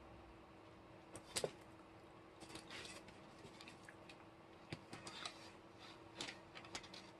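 Faint scattered clicks and crackles of someone eating chicken, mouth and chewing sounds, with a sharper pair of clicks about a second and a half in. A faint steady hum runs underneath.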